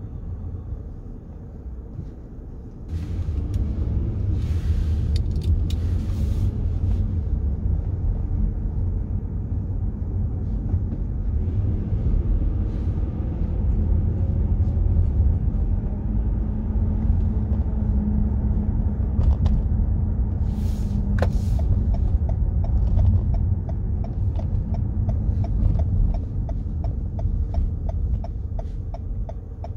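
Car driving through city streets, heard from inside: a steady low engine and road rumble that rises as the car pulls away about three seconds in, with a couple of brief hissing swells of passing traffic and a run of even, faint ticks near the end.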